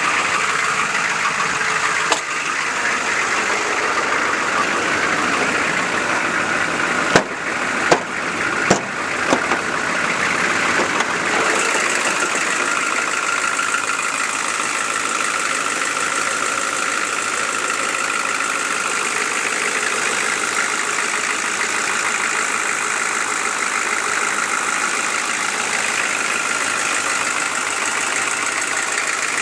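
Chevy 6.5L V8 diesel engine idling steadily while warming up. A few sharp knocks come about a quarter of the way in.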